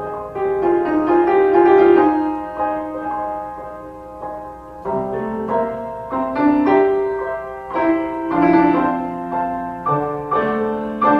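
Background piano music: a slow melody of struck notes and chords.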